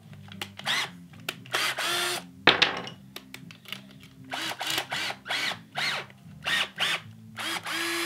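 Orange cordless drill run in short bursts of the trigger, its chuck spinning as the countersink bit is swapped out for another bit. There are about eight quick runs and two longer ones near the start and at the end, with a single sharp knock about two and a half seconds in.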